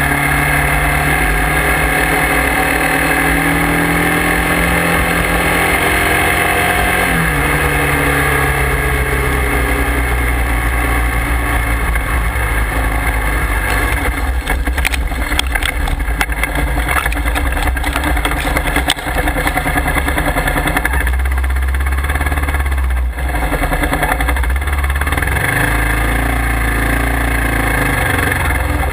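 Motorcycle engine running while riding, with wind noise on the microphone. From about halfway through, a run of knocks and bumps as the bike goes through tall grass.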